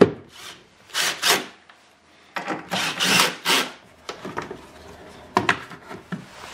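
A plastic car taillight housing being pushed back into its opening in the body: a sharp click, scraping and rubbing of plastic against the body for a second or so in the middle, and a few more clicks near the end.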